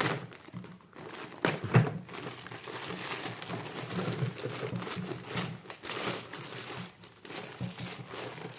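Clear plastic wrap crinkling and rustling as it is pulled off a toy by hand, with a few sharper crackles about a second and a half in.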